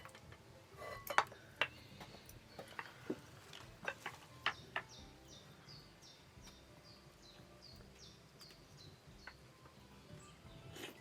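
Several sharp clinks and knocks in the first few seconds, then a bird calling a quick run of about a dozen short, high, falling notes, roughly three a second.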